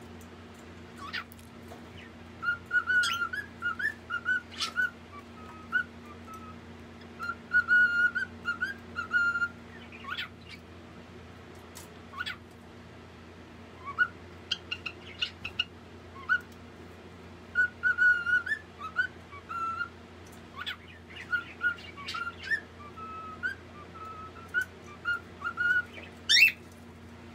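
Small pet parrot chirping and chattering in bouts of short warbling notes mixed with sharp clicks, with pauses between the bouts and a sharp rising squeak near the end. A steady low hum runs underneath.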